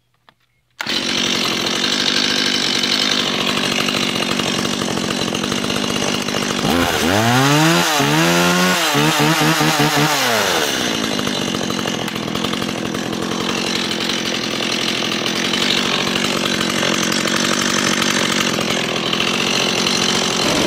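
Stihl MS 170 two-stroke chainsaw starting up about a second in and running at idle. Around the middle it is revved, the pitch sweeping up and down and then held high for a few seconds, before it drops back to idle.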